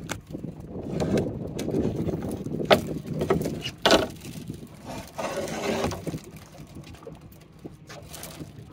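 Coated-wire crab trap being shaken and handled on a boat deck: rattling with a few sharp knocks, the loudest about three and four seconds in, over a steady low rumble.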